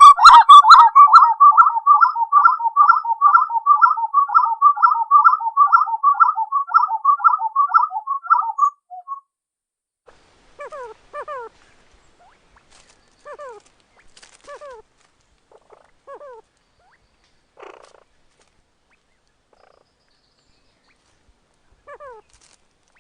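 Spot-winged wood-quail (uru) singing: a loud, rapid rolling series of paired notes, about three a second, that stops about nine seconds in. After it come a few scattered, fainter falling call notes.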